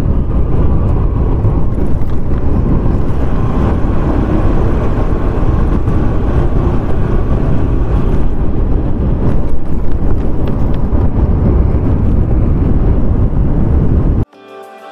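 Loud rushing noise of riding a Yamaha Fascino scooter along the road: wind on the microphone with engine and road noise beneath. It cuts off suddenly near the end.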